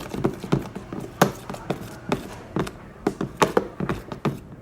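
A mixing utensil knocking against the side of a bowl as lotion is stirred into glue for slime, about three irregular taps a second, thinning out near the end.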